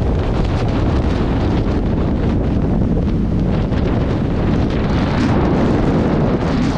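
Steady wind buffeting a camera's microphone on a car moving at highway speed, over a low rumble of tyres on the road.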